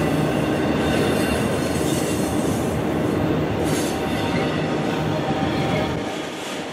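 Autorack cars of a freight train rolling past: a steady rumble of steel wheels on rail, with a faint high wheel squeal over it. The low rumble drops away about six seconds in.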